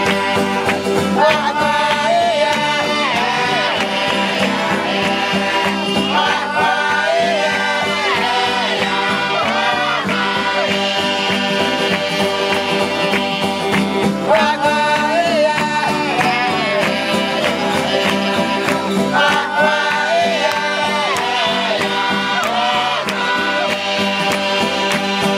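Voices singing a folk song to a steady strummed accompaniment, the sung phrases rising and falling over a constant held chord.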